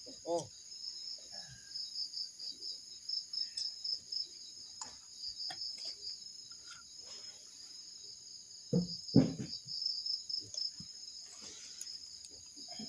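Crickets chirping in a steady high trill that does not let up, with a few faint sounds beneath it and two short louder sounds about nine seconds in.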